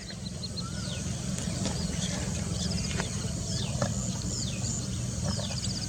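Lesser whistling ducks giving short whistled calls that fall in pitch, repeated about once a second, over a steady low rumble.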